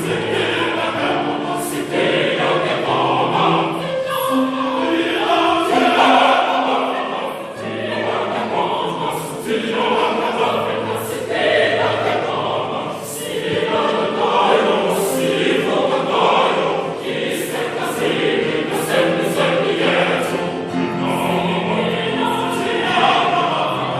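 A choir singing in harmony, several voices holding and changing notes together.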